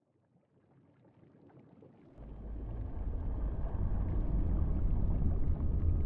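Low rumbling ambience fading in from silence under a hiss, swelling sharply about two seconds in and then holding steady.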